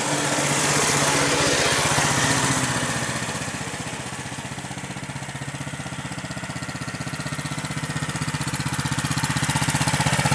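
A 6.5-horsepower mini bike's small single-cylinder engine running as it is ridden, a steady rapid putter. It is loudest in the first few seconds, falls off through the middle and grows louder again near the end.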